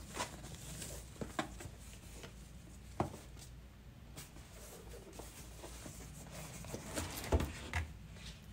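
A rigid cardboard gift box being handled: the ribbon is pulled off, with scattered light taps and rustles as the box is turned. Near the end comes a low thud and a scrape as the lid is lifted off.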